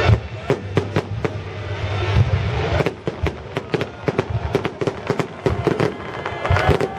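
Fireworks salute: a rapid, irregular series of sharp bangs and crackles from bursting shells over a steady low rumble, with a wavering whistle-like tone near the end.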